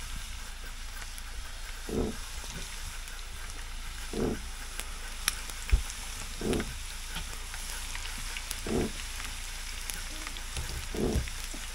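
A steady hiss, with a short low call or thud repeating about every two seconds.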